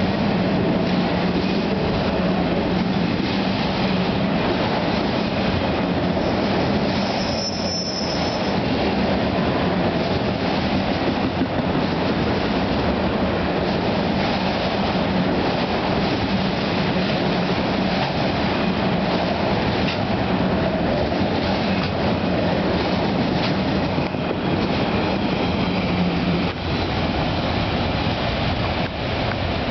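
Autorack freight cars rolling past at close range, a steady rumble of steel wheels on the rail. A brief high-pitched wheel squeal comes about eight seconds in. The rear of the train passes near the end.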